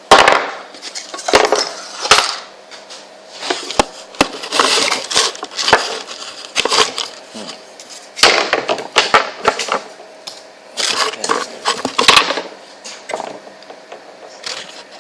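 Irregular metallic clinks, knocks and scraping at a metal lathe, some sharp and loud, over a faint steady hum.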